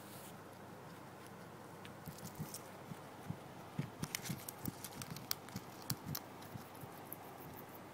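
Guinea pig chewing fresh grass up close: a run of quick, irregular crisp crunching clicks that starts about two seconds in and thins out near the end, over a faint steady hiss.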